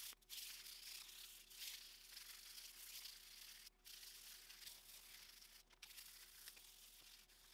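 Faint hiss of 500-grit sandpaper rubbed by hand over the dried finish on a hickory slab: a light scuff-sanding between coats to knock down the raised grain. The rubbing is broken by a few short pauses.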